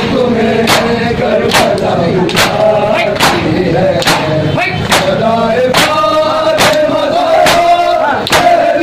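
A crowd of men beating their chests with their palms in unison (Shia matam), one sharp slap a little more than once a second, while a group of male voices chants a mourning lament over the beat.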